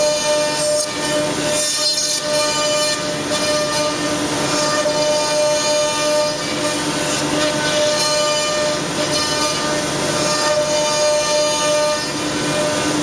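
CNC router running with a steady, even whine over constant machining noise.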